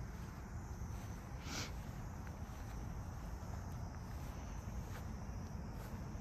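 Insects chirping steadily in the grass over a low rumble, with one short rustle about a second and a half in.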